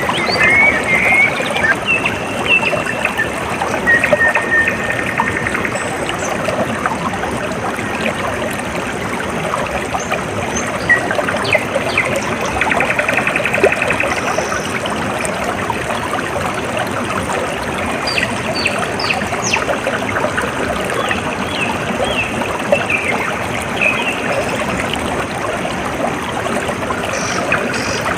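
Water trickling and splashing steadily in a small stream, with birds chirping and trilling now and then over it.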